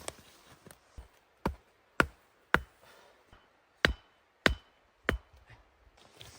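Wood being chopped with a hatchet or axe: seven sharp strikes about two a second, four in a row, then a short pause, then three more.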